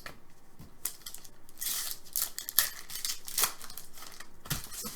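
Hockey trading cards sliding against each other as they are flipped through by hand: a series of short papery swishes and flicks.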